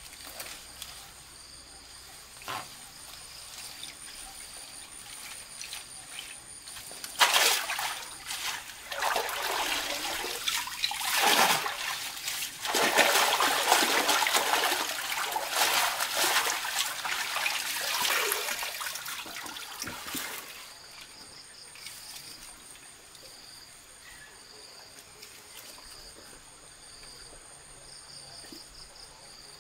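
Hands splashing and sloshing in shallow pond water. It starts about a quarter of the way in and stops about two-thirds through, over a faint steady buzz of insects.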